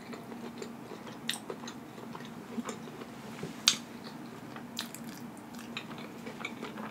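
A person chewing a mouthful of burger with lips closed: soft, wet, irregular smacking clicks, one louder smack about halfway through.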